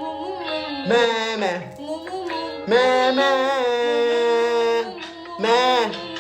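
Music with a high voice singing drawn-out notes, one held for about two seconds, then short rising-and-falling notes near the end.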